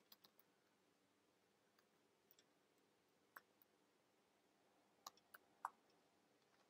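Near silence with a few faint, scattered computer keyboard clicks, three of them close together a little past five seconds in.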